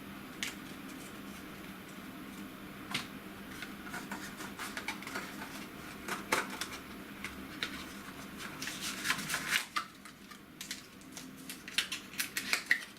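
Irregular light clicks and taps of small objects being handled, coming thicker toward the end, over a steady low hum.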